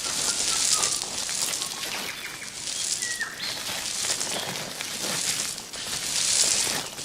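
Outdoor background noise: a high hiss that swells and fades every couple of seconds, with a few faint bird chirps.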